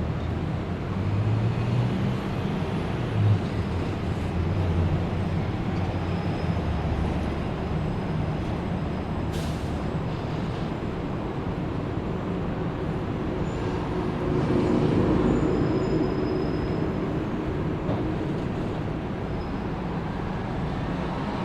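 City street traffic: a steady rumble of engines and tyres from cars and heavy vehicles. There is a brief hiss about nine seconds in, and a louder vehicle passes a little past the middle.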